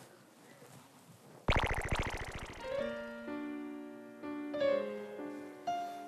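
Background music that starts suddenly about one and a half seconds in with a quick rippling flourish, then goes on as held keyboard notes, several sounding together and changing every second or so.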